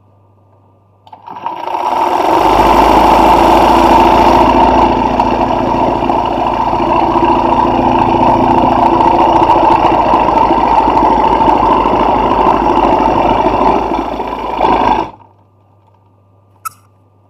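Industrial sewing machine doing hand-guided hoop embroidery: it starts about a second in, runs fast and steadily, and stops abruptly after about thirteen seconds, leaving only a low hum and a faint click.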